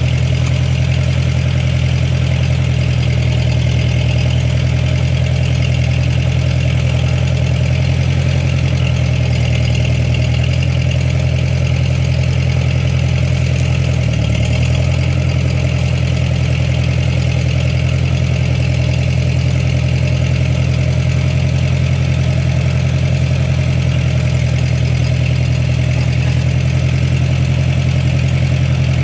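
Ford 8N tractor's four-cylinder engine running steadily, its pitch briefly sagging about halfway through.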